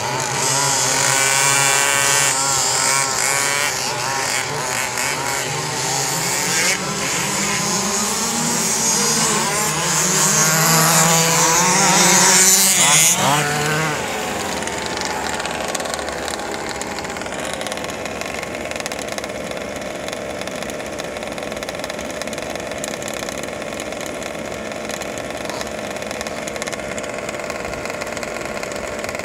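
Several radio-controlled sprint cars racing, their small motors whining and rising and falling in pitch as they go round the track. About fourteen seconds in the sound cuts abruptly to a steadier, quieter drone of the cars running.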